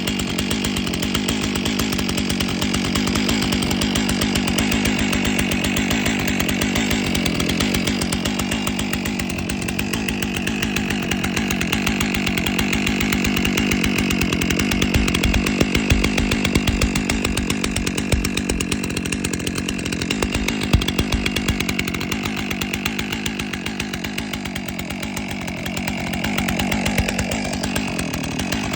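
Stihl MS661 C two-stroke chainsaw engine running steadily as it warms up.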